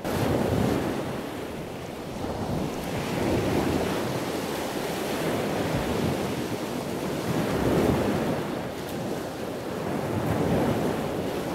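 Ocean surf rushing onto a beach, a steady wash that swells and eases every few seconds, with wind.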